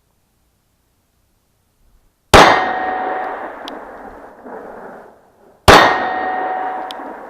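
Two shots from a Glock 43 9 mm pistol, about three and a half seconds apart. Each is followed by the clang of a steel target ringing and fading over a couple of seconds.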